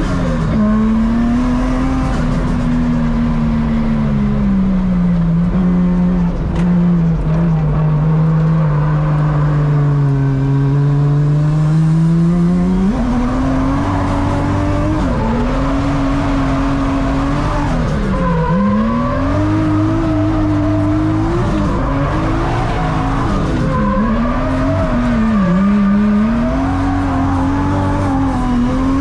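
Turbocharged 1JZ straight-six of a Toyota Chaser drift car, heard from inside the cabin while drifting. The engine note sinks slowly for about the first twelve seconds, then jumps up and swings up and down with several sharp dips through quick transitions, with tyres squealing.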